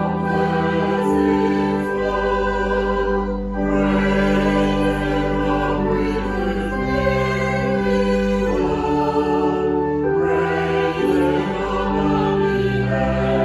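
Slow choral music: held chords sung by a choir, changing every two or three seconds.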